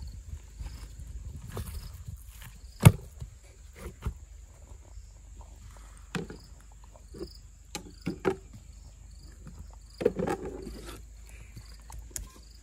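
Hands rubbing a wet chili-and-oil marinade into a whole raw fish: irregular soft squelches and taps, with one sharp click about three seconds in and a cluster of handling noise near the end. Insects chirp steadily in the background.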